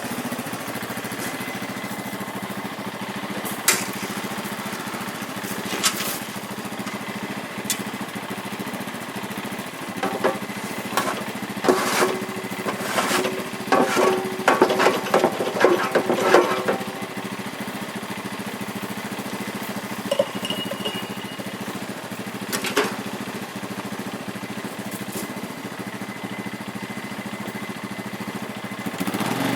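An engine running steadily right through, with scattered sharp knocks over it and a busier stretch of rapid clattering and a pulsing pitched tone from about ten to seventeen seconds in.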